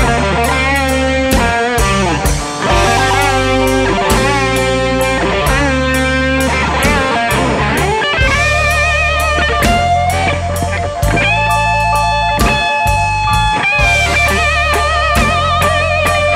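Electric blues band playing an instrumental passage. A lead electric guitar bends notes and holds them with vibrato, with longer held notes in the second half, over bass and drums.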